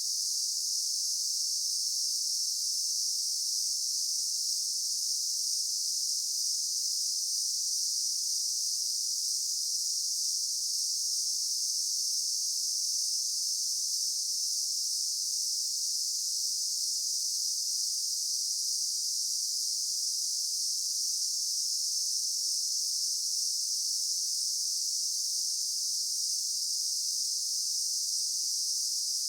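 Insect chorus: a dense, steady, high-pitched drone of many insects with no pauses or changes.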